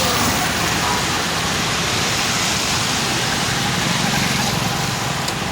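Steady rushing noise of floodwater flowing over a waterlogged road, with the low hum of vehicles driving through it.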